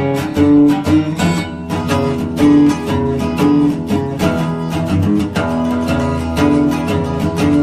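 Background music: an acoustic guitar played in a fast run of plucked and strummed notes.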